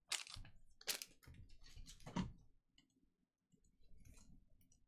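Trading cards and their pack wrappers being handled on a table: a few short, sharp clicks and rustles, the loudest near the start and around one and two seconds in, with fainter ones near the end.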